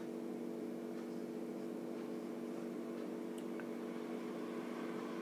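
A steady low hum of several held tones, with a few faint light ticks of a marker writing on a whiteboard.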